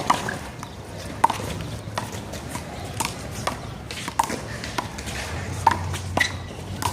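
Rubber handball being struck during a one-wall handball rally: a string of sharp smacks off hands, the wall and the court, about one every half second to a second.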